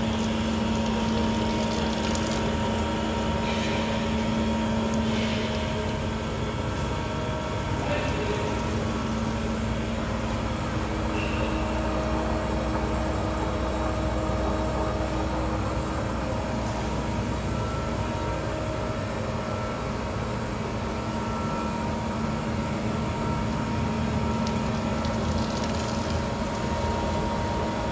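IMET X-Tech 410 horizontal metal band saw running, a steady mechanical hum holding a few constant tones.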